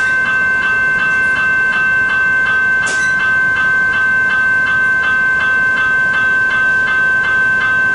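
General Signals E-Bells at a railway level crossing ringing continuously, about three electronic strikes a second over a steady ringing tone, sounding while the boom gates are down.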